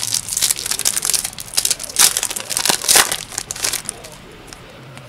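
Foil trading-card booster pack being torn open and crinkled by hand, a run of crackling rips with the sharpest around two and three seconds in. The crinkling dies away about four seconds in as the cards are drawn out.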